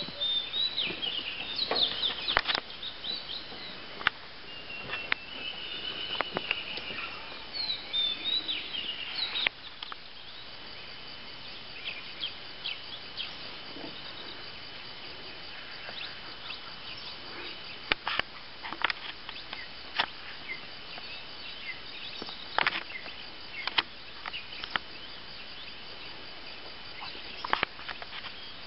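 Forest ambience: birds calling during roughly the first ten seconds over a thin, steady high whine, with scattered short sharp clicks and taps throughout.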